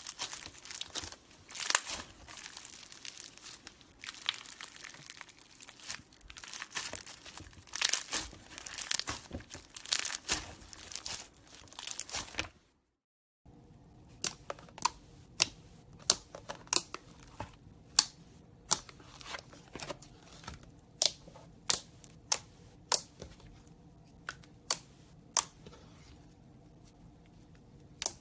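Slime being worked by hand: about twelve seconds of dense crackling and crinkling, then, after a short cut, a run of separate sharp clicking pops about one or two a second.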